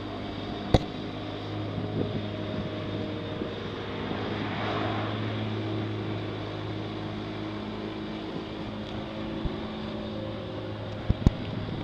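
A steady low mechanical hum with a few sharp clicks, one about a second in and several close together near the end.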